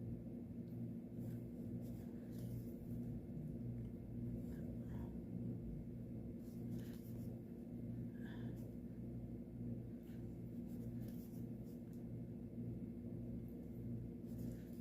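Needle and floss being drawn through cross-stitch fabric: a few faint, scattered scratches and ticks. Under it runs a steady low hum that pulses in a slow, regular beat.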